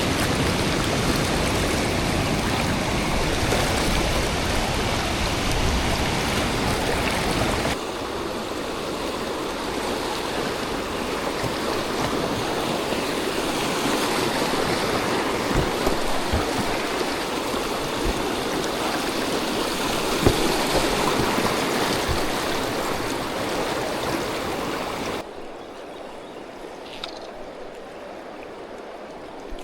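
River water rushing over riffles, a steady full hiss. It changes abruptly about a third of the way in and again near the end, where it drops to a quieter flow.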